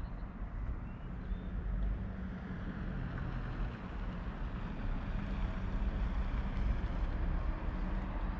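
Approaching train: a low rumble with a steady drone, slowly growing louder.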